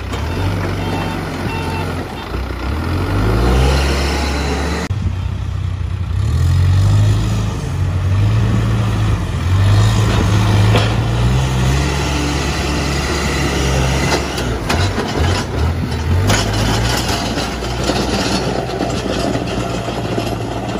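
Case backhoe loader's diesel engine running, its speed rising and falling again and again as it works, with a few knocks.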